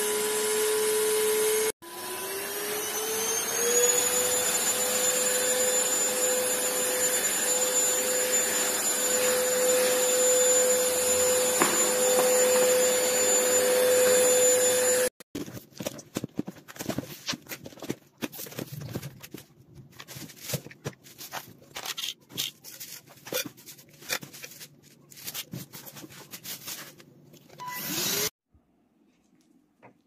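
Kessler K-9998 cordless stick vacuum's motor running with a steady high whine; about two seconds in it cuts out, then spins up again, rising in pitch to a steady whine that stops abruptly about fifteen seconds in. After that come irregular clicks and rustles of the vacuum's cardboard box being opened and handled.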